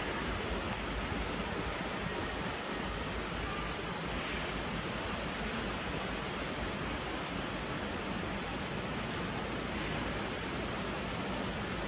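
Steady, even hiss-like background noise with no distinct sounds standing out.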